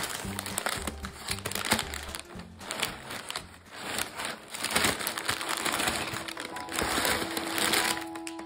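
Crumpled brown kraft packing paper crinkling and rustling as hands press into it and pull it out of a cardboard box, with background music underneath.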